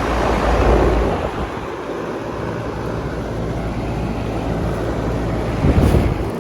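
Trane XB13 central air conditioner condensing unit running, its condenser fan really loud: a steady rush of air over a low electrical hum. The noise swells with low rumbling gusts about a second in and near the end.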